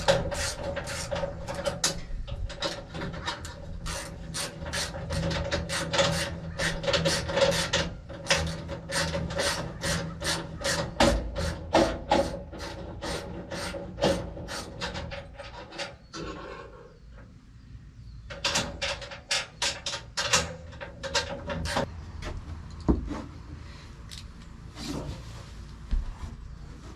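Rhythmic rasping strokes, about three a second, working on wood or metal, stopping for about two seconds past the middle and then resuming more sparsely, over a steady low hum.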